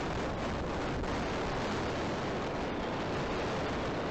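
Thunderstorm wind buffeting the nest camera's microphone: a steady, even rushing noise.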